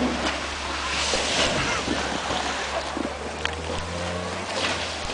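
Water rushing and splashing on a half-pipe waterslide as a rider on an inflatable tube slides down and up the wall, swelling about a second in and again near the end, with wind rumbling on the microphone.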